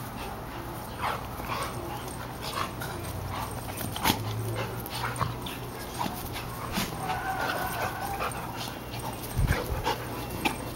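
Puppies playing, giving scattered short yips and whimpers.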